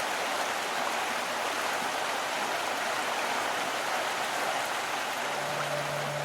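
Steady rushing of running water, like a stream. About five seconds in, a low held note begins under it.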